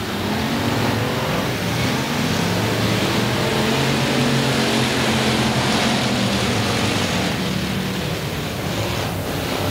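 A pack of dirt-track stock cars running together at slow caution pace, their engines a steady, even drone with no hard revving.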